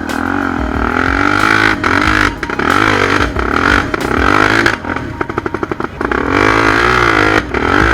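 Honda Tornado 250 trail bike's single-cylinder four-stroke engine revving up and down repeatedly under load on a climb, dropping to a slow low-rev chug about five seconds in before picking up again.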